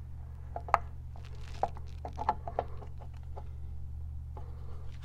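Scattered light clicks and knocks of metal engine parts handled as a cam plate is fitted onto a Harley-Davidson Twin Cam engine, the sharpest click about a second in, over a steady low hum.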